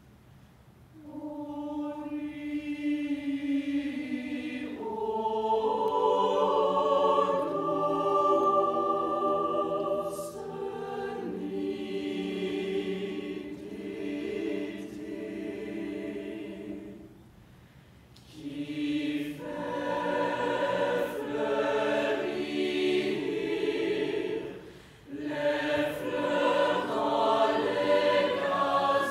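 Mixed choir of male and female voices singing sustained chords in long phrases. The singing starts about a second in and breaks off briefly twice, about two-thirds of the way through and again near the end, before the next phrase.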